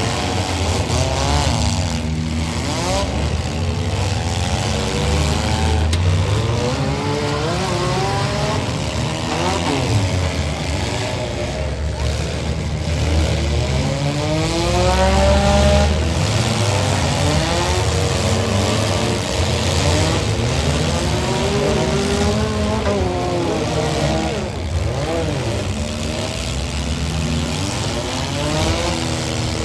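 Several compact-car engines revving at once, their pitches rising and falling over one another as the cars push and ram, with a metallic bang of a collision now and then.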